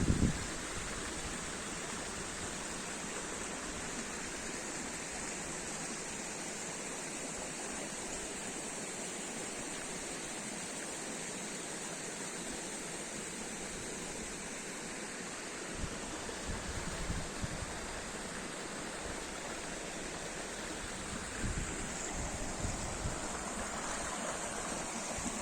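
Steady rush of running water, like a stream, with a few low bumps of wind on the microphone after about 16 seconds and again near the end.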